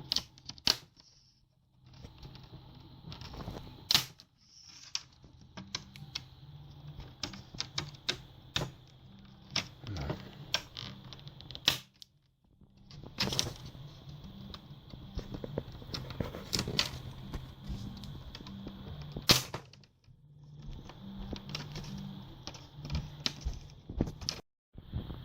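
Plastic bezel clips on an ASUS F540S laptop screen snapping and clicking as the bezel is pried off the lid. The clicks come irregularly, some much sharper than others, with the loudest snaps about four seconds in and near the two-thirds mark.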